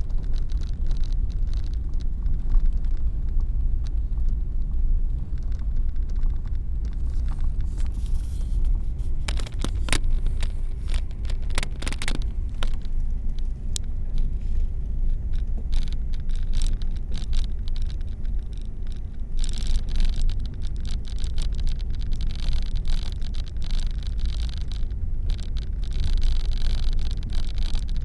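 Car cabin road noise while driving on a snowy road: a steady low rumble of engine and tyres, with a few sharp ticks about a third of the way in and a hiss that comes up in the second half.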